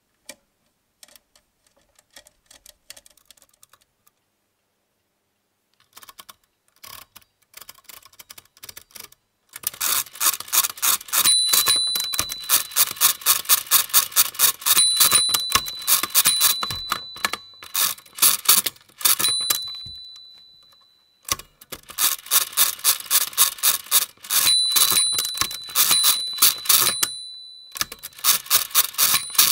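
Walther WSR 160 pinwheel mechanical calculator being worked by hand: a few light clicks of its setting levers at first, then, about a third of the way in, a quick run of hand-crank turns, each a sharp metallic clatter. Its small bell rings again and again between turns, signalling an overdraft as the machine divides by repeated subtraction.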